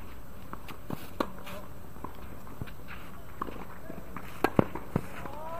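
Footsteps and scattered sharp taps on a hard tennis court, with three louder knocks close together near the end.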